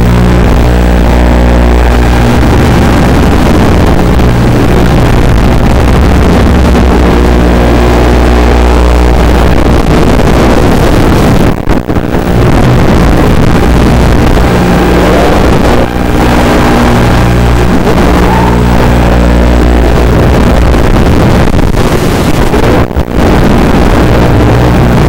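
FPV racing quadcopter's brushless motors and propellers buzzing loud and distorted through the onboard microphone, the pitch stepping and gliding up and down with the throttle. The sound drops briefly twice, about halfway through and near the end.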